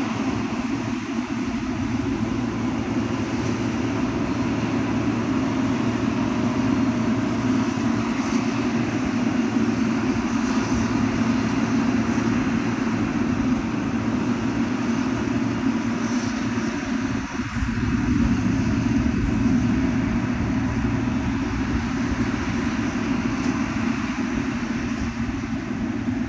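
XCMG motor grader's diesel engine running steadily as the machine works, with a brief drop in level about two-thirds of the way through.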